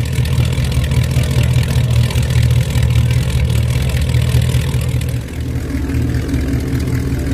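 Vintage racing car's engine idling: a deep, steady running note that dips briefly about five seconds in.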